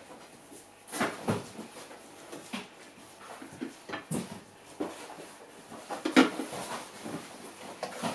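Plastic parts of an electric fly trap being handled: scattered light clicks, knocks and scrapes as its lid section is lifted off the base and moved about, the loudest knock about six seconds in.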